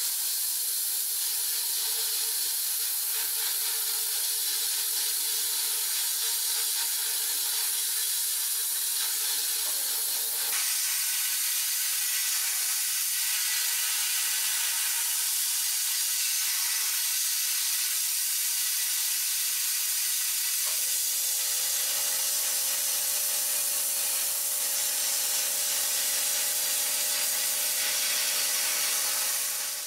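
Abrasive blasting in a sandblast cabinet: a hand-held nozzle fires grit at a rusty steel axe, making a loud, steady hiss. About twenty seconds in, a low hum joins underneath.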